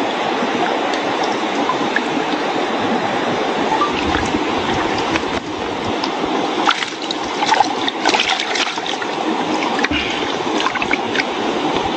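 Mountain stream water rushing steadily, with a run of small clicks and knocks from about six and a half to eleven seconds in.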